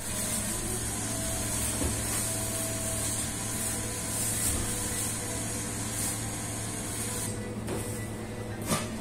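Commercial rack oven running: a steady rushing of its convection fan over a low motor hum. A short sharp knock near the end.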